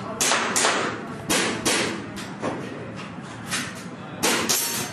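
Handgun shots on an indoor range, about eight in all, mostly fired in quick pairs about a third of a second apart, each followed by a short echo off the walls.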